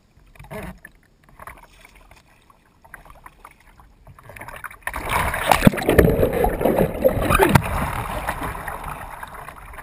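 Water lapping and then splashing hard against a sea kayak's hull and paddle as the boat heels over to capsize for a roll, heard close up from a camera on the deck. It is faint at first, then turns to loud, choppy splashing about five seconds in.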